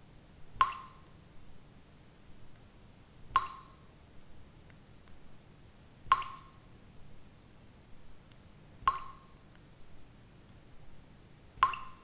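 Water droplets dripping one at a time in a steady rhythm: five clear plinks about every two and three-quarter seconds, each with a short ringing tone, and fainter small ticks in between.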